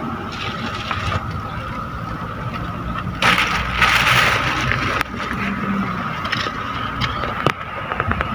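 Chicken wings sizzling on a wire grill over a charcoal fire, with a louder burst of hiss about three seconds in that lasts nearly two seconds. A few sharp clicks of metal tongs come near the end, over a steady low rumble.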